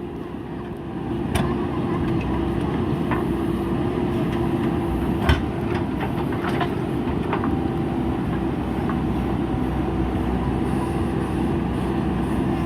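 JCB backhoe loader's diesel engine running steadily, getting louder about a second in, with a few sharp knocks as it works.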